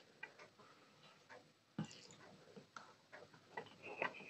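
Fingers mixing rice and fish curry on a steel plate: faint, scattered wet clicks and ticks, with a sharper tap a little under two seconds in and a brief squeak near the end.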